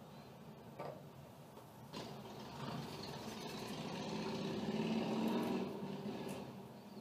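Two small clicks, then rustling and rubbing handling noise that swells and fades as a hand moves right up against the recording phone.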